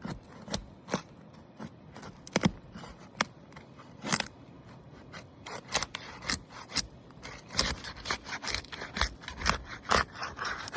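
Asphalt shingle sealant strip being pried apart: irregular crackling and ripping as the adhesive bond between two shingles tears loose, the strip so strong that it rips the shingle itself.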